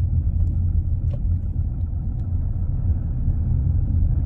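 Steady low road and engine rumble from inside a moving car, with a few faint ticks.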